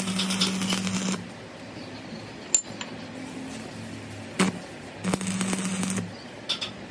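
Stick-welding arc crackling over a steady electrical buzz, stopping about a second in and striking up again for about a second near the end. Between the two bursts there are two sharp clicks.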